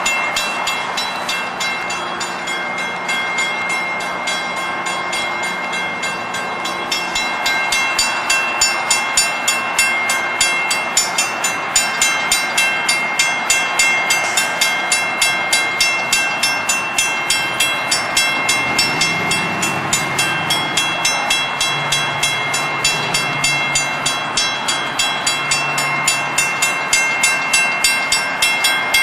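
Railroad crossing bell ringing steadily, about two to three strikes a second, over the running noise of a passing commuter train of bilevel coaches.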